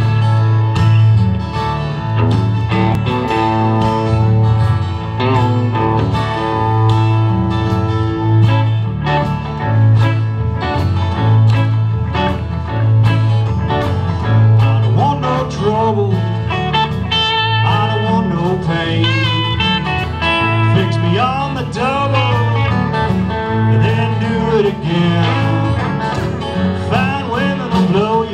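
Live band playing a country-rock song on acoustic and electric guitars with drums and a steady bass pulse. A lead vocal comes in about halfway.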